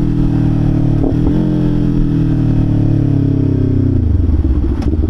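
Kawasaki Ninja 500's parallel-twin engine through a Leo Vince LV Corsa exhaust, coasting off the throttle: the engine note falls steadily, with a short break about a second in, and settles to a low idle rumble about four seconds in.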